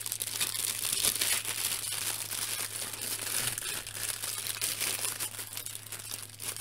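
Clear plastic bags of model-kit parts crinkling as they are handled and turned over: a continuous crackle of many small crinkles.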